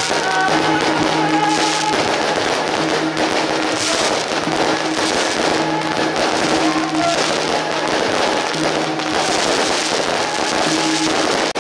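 Firecrackers laid out in rows on the road going off in a dense, unbroken crackle, with fountain fireworks shooting sparks. Music with long held notes plays underneath.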